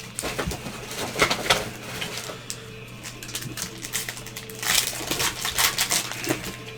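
Foil trading-card pack wrappers being torn open and crinkled, with cards handled, in irregular crackly bursts over a steady low hum.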